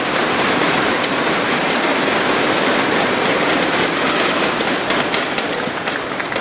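Steady, loud din of a large arena crowd filling the hall during a badminton rally, with a few sharp clicks about five seconds in.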